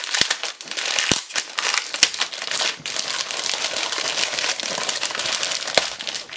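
Shiny plastic foil bag of a LEGO Avengers mystery pack crinkling as hands peel and pull it open, with a few sharper crackles.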